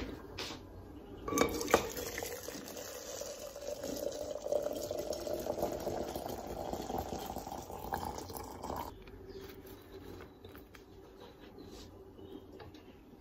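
A few glass clinks, then water poured from a kettle into a glass teapot, the filling note rising in pitch until the pour stops suddenly about nine seconds in; faint light handling noises follow.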